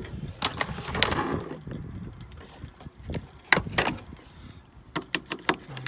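Plastic fuse box cover and its clips under a car's hood being handled and unclipped: scattered clicks and rattles, two sharp clicks about three and a half seconds in, and a quick run of clicks near the end.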